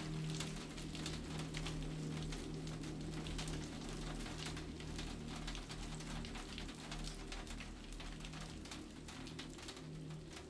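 Rain pattering in dense, irregular drops over a low steady hum, slowly fading.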